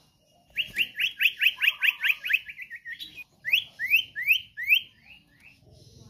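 Common iora singing. About half a second in comes a fast run of rising whistled notes, about five a second, that speed up and shorten. After a brief break comes a slower run of six louder rising notes that fade out.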